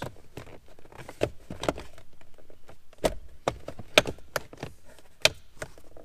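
Plastic centre-console trim and shifter-boot surround being pressed down by hand, its clips snapping into place: a series of sharp clicks and knocks, about seven in all, with rustling of the trim and boot in between.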